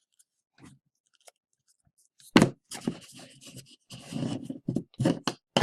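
Trading cards being handled: a knock a little over two seconds in, then a run of rubbing and scraping as the cards slide against each other.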